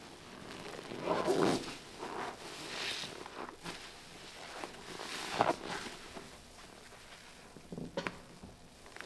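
Wet squelching of a soaked sponge being squeezed full of liquid: four separate squeezes, about a second in, near three seconds, halfway through (the loudest) and near the end, with liquid splattering out.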